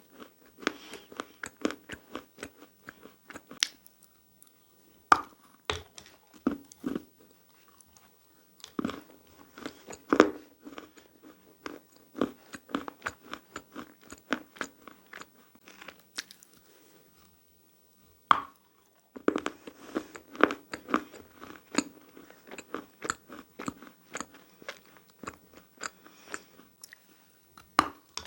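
Dry chalk being bitten and chewed close to the microphone: sharp cracks as pieces snap, then quick runs of crunching between the teeth. The chewing stops for a couple of seconds past the middle, then a sharp bite starts it again.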